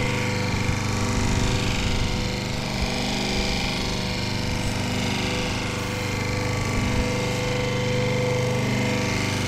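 Robot Coupe R301 Series D food processor's electric motor running steadily, a constant hum with a few steady tones.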